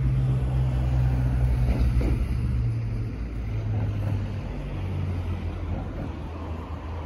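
A motor vehicle's engine running nearby as a low, steady hum that shifts pitch a couple of times partway through and slowly fades.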